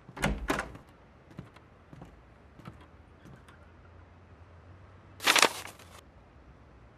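Paper-handling sound effects: two short soft thuds at the start and a few light taps, then a louder rustling swish of a stack of papers about five seconds in.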